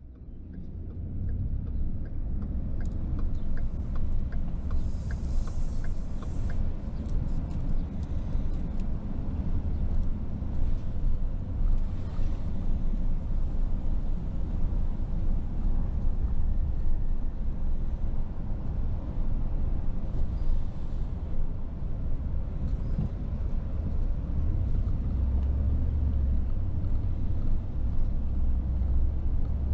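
Car driving along: a steady low rumble of engine and road noise that grows louder over the first couple of seconds.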